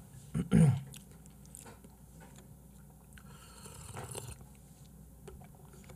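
Mouth sounds of a person eating raw beef: chewing, with a short vocal sound about half a second in. Around four seconds in comes a slurping sip from a small cup.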